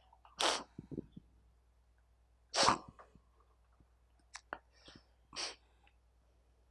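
A man's short breathy bursts close to a handheld microphone, two of them about two seconds apart, the second louder, then a few faint clicks and a softer burst near the end.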